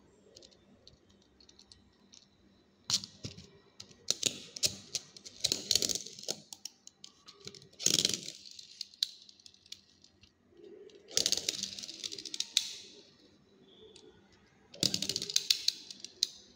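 Plastic parts of a small toy drone clicking and rattling in four bursts of rapid ticks, with scattered single clicks between them.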